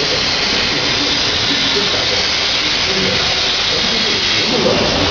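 A machine tool running with a steady hissing noise, with muffled voices faintly in the background.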